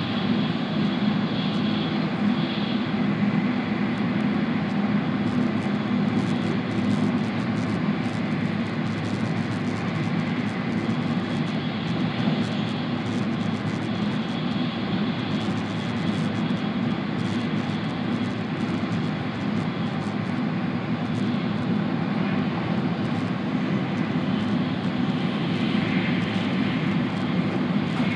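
Steady running noise heard from inside a moving passenger train's carriage: a continuous low rumble of wheels on track, with a faint steady whine above it.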